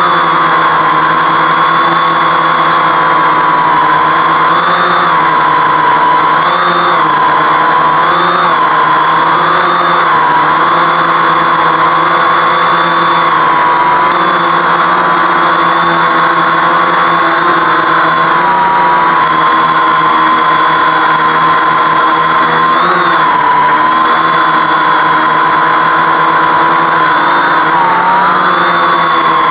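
Homemade 520 mm quadcopter's motors and propellers humming steadily in a hover, the pitch dipping and wavering briefly every couple of seconds as the flight controller holds position in loiter mode.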